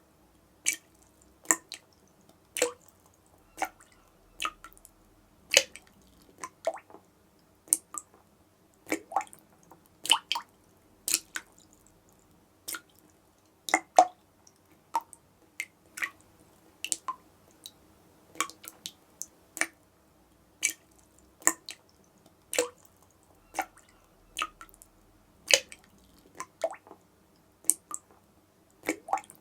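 Water dripping from a tap, about one drop a second at an uneven pace. Each drop is a short, sharp plink, and its pitch varies from drop to drop.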